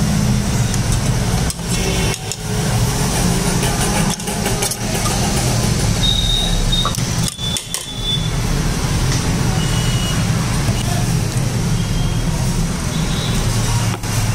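Steady low rumble of road traffic, with faint background voices.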